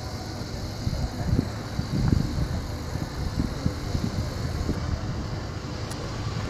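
Wind buffeting the microphone: a low, gusty rumble that swells strongest about two seconds in, over faint open-air ambience.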